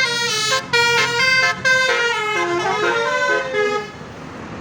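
Bus telolet basuri horn, a multi-tone musical air horn, playing a quick tune of stepped notes. The tune stops about four seconds in.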